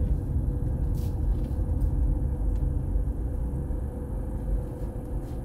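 Car cabin noise while driving: a steady low rumble of engine and road noise heard from inside the car.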